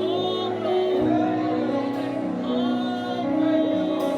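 Church worship music: voices singing a slow melody over sustained, held instrumental chords.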